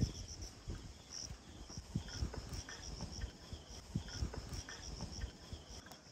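Insects calling from the surrounding vegetation: short high chirps repeating in quick runs, over a low rumble.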